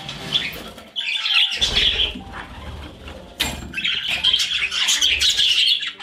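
A flock of budgerigars chattering and chirping, with some wing flutters. The chatter thins briefly around the middle and picks up again after about four seconds.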